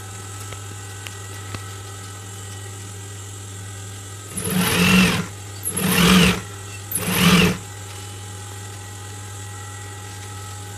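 Industrial sewing machine stitching through folded fabric in three short runs of about a second each, over a steady low hum.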